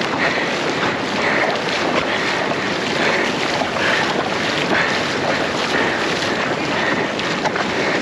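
Surf washing in the shallows, with wind rumbling on the microphone.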